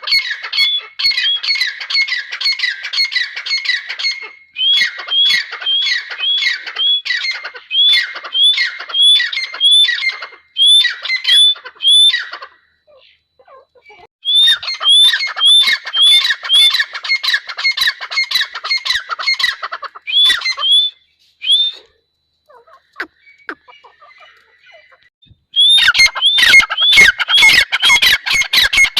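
Grey francolin (teetar) calling loudly, a fast run of shrill, repeated hooked notes delivered in long bouts. There is a break a little before halfway and a longer quiet spell about three-quarters of the way through, before the calling resumes.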